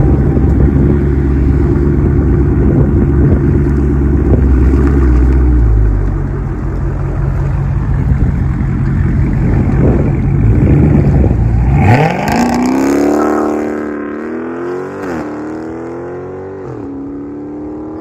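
A Dodge Charger 392's 6.4-litre HEMI V8 exhaust through DynoMax Race Bullet mufflers: a loud, deep, heavy rumble close by. About twelve seconds in, the car accelerates hard away, the engine climbing sharply in pitch. Two upshifts follow, each a quick drop and climb, and the sound fades with distance.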